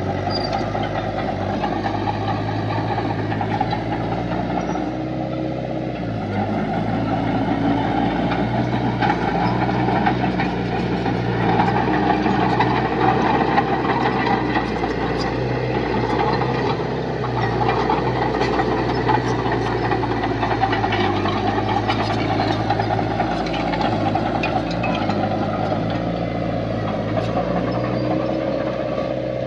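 Diesel engine of heavy earthmoving machinery running steadily, a little louder through the middle.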